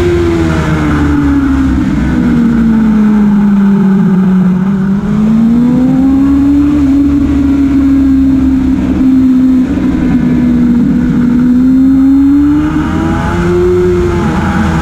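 Motorcycle engine heard from on the bike at speed. The engine note falls over the first few seconds as the rider brakes into a corner, then climbs and holds as it drives through the bends, rising again near the end, with steady wind rush throughout.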